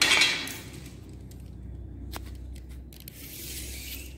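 Wooden slats being handled: a loud scraping rustle right at the start, one sharp knock about two seconds in, and a softer scrape near the end.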